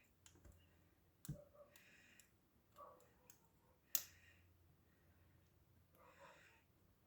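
Faint, scattered small clicks of a lock pick and tension wrench working the pins in one core of an old Russian dual-custody padlock, the sharpest click about four seconds in.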